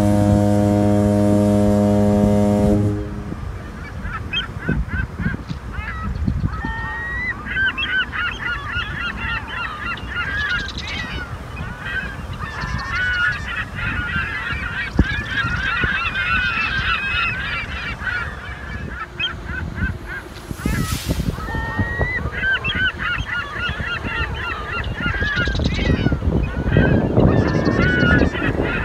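A deep, steady horn tone sounds for about the first three seconds and cuts off abruptly. Then a flock of birds calls loudly, with many calls overlapping, over a low rumble of wind that grows stronger near the end.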